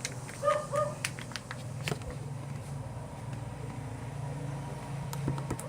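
A steady low hum with scattered light clicks, and two short pitched calls close together about half a second in.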